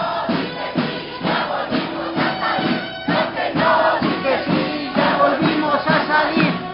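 A crowd of marchers chanting together in unison, with a steady beat running under the voices.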